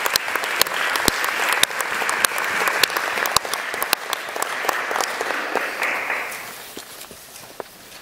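Audience applauding, the clapping fading away over the last two seconds.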